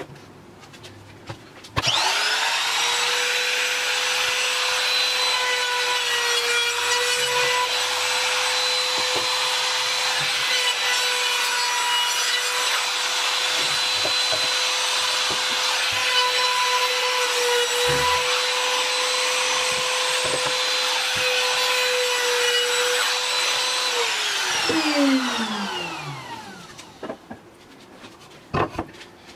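Trim router switched on with a quick rising whine, running at a steady high whine as it cuts along a pine board's edge, then switched off near the end and winding down in a falling whine over a few seconds.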